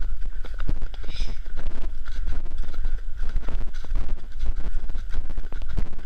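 Horse's hooves striking a leaf-covered dirt trail at a steady gait, heard from a camera on the rider, with wind rumble on the microphone.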